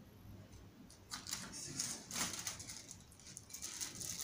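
Rustling and light scraping of a cardboard box and its paper and plastic packing being handled, in several short rustles.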